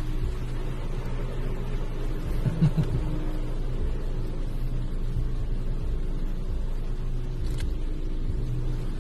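Automatic car wash machinery running, a steady low rumble and hum heard muffled from inside the car's cabin. A brief louder low sound comes about two and a half seconds in.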